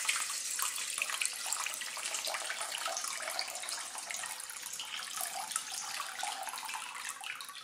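Water from a dehumidifier's collection tank poured in a steady stream into a stainless steel bowl, splashing into the water already there. The pour fades out near the end.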